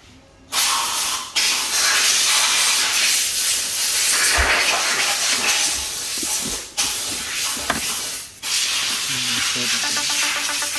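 Loud steady hiss of a pressurised spray, starting about half a second in and broken by three short pauses.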